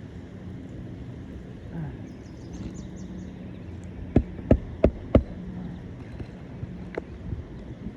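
Hammer driving a roofing nail into an asphalt shingle: four quick, sharp blows about halfway through, then a couple of lighter taps near the end, over a steady low hum.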